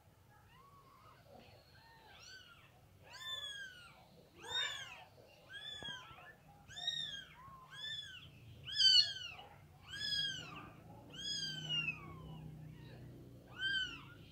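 Newborn kittens mewing: thin, high-pitched cries that rise and fall, about one a second, a dozen or so in a row.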